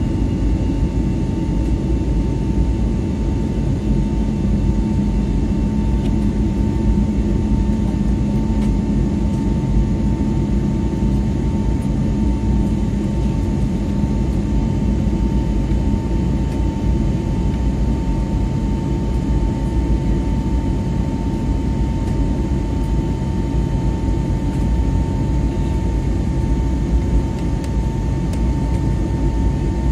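Airbus A320's jet engines heard from inside the cabin during the climb after take-off: a loud, steady rumble with a thin, even tone held above it.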